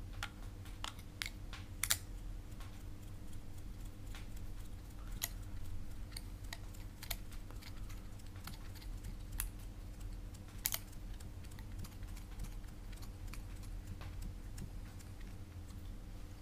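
Irregular small plastic clicks and taps from an action-camera housing frame and its plastic mount adapter and thumb screw being handled and fitted together, with the sharpest clicks about two seconds in and again about ten seconds in. A steady low hum runs underneath.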